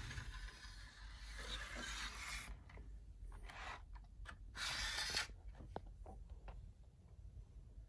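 Faint rubbing and scraping, then a few light clicks, from a plastic HO-scale model passenger car being handled and turned around on a length of model track.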